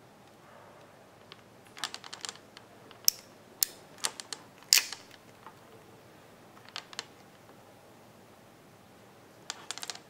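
Hand crimping tool crimping a pin terminal onto a wire: runs of sharp clicks as the handles are squeezed and released. The clicks are thickest from about two to five seconds in, with the loudest near the end of that stretch. A couple more come near seven seconds and a quick run at the end.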